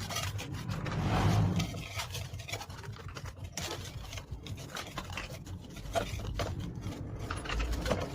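Scraping and rubbing with irregular clicks and knocks from hands-on work on an electric water heater's heating element, loudest about a second in.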